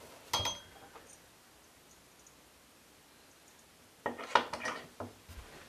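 Metal parts of a chrome bathtub drain clinking: one sharp, briefly ringing clink just after the start, then a quick cluster of clattering clinks about four seconds in as the twist-top stopper is worked into the drain.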